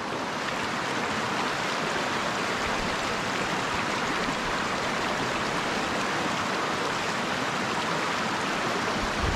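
Small mountain stream tumbling over rocks in a shallow riffle: a steady, even rush of water.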